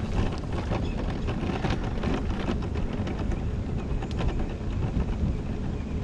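Wind rushing over the GoPro's microphone as an electric mobility scooter rolls along a wet asphalt street, with steady tyre and road noise and scattered light ticks.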